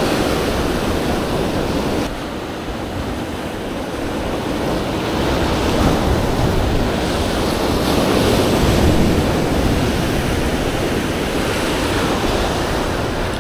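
Ocean surf surging and washing against rock cliffs, with wind on the microphone; the wash swells to its loudest past the middle and eases again.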